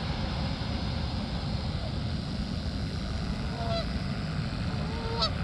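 Geese honking: a few short calls over a steady low rumble.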